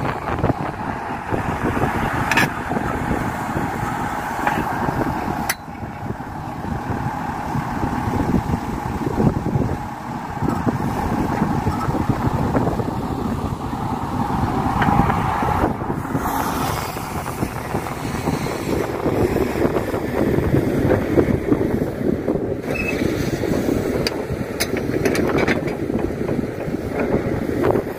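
Kato HD512E excavator's diesel engine running steadily under work, with a few sharp knocks in the first few seconds and wind buffeting the microphone.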